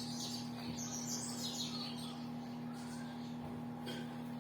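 Microwave oven running with a steady hum while heating, with birds chirping over it.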